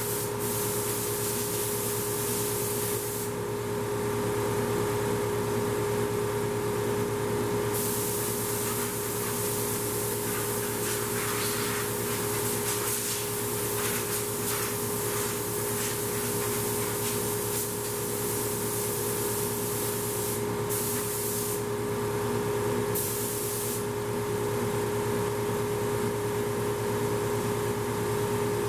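Edgebanding machine running with a steady pitched tone and hum, while compressed air from a blow gun hisses in long blasts. The hiss stops about three seconds in, comes back a few seconds later, and cuts out briefly twice near the end.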